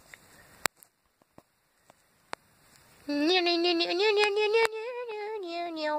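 A few faint clicks, then from about halfway a woman hums a short tune, her pitch stepping up and down a few times.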